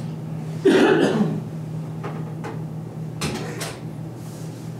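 Steady low room hum, with one short, loud scuffing noise just under a second in, followed by a few light taps and clicks: people shifting and handling things at the table.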